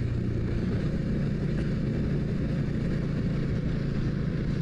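A 400 cc motorcycle engine running steadily while the bike cruises, a constant low hum that holds one pitch with no revving.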